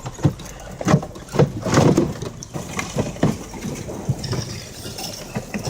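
Drifting lake ice grinding and crunching: a rough scraping bed broken by irregular sharp cracks and knocks, busiest in the first half.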